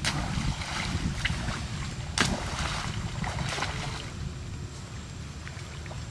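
Macaques splashing into and paddling through lake water: a splash at the start, a louder one about two seconds in, and smaller ones between, over low wind rumble on the microphone.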